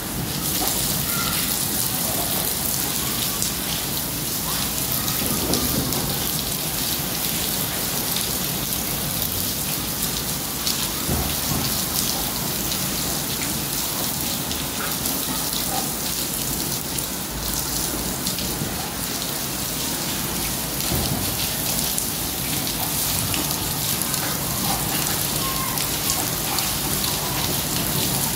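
Heavy rain falling steadily onto a concrete rooftop, a constant hiss of rain.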